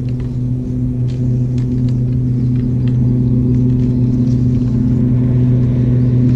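Boat motor running with a steady, loud low hum, with a few faint clicks over it.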